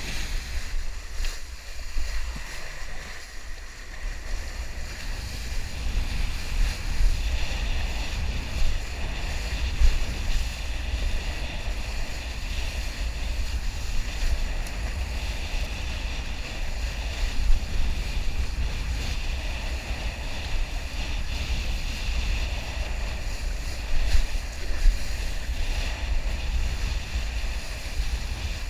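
A kiteboard planing across choppy sea: a steady hiss of water and spray off the board, under a low rumble of wind on the microphone, with a few brief louder moments.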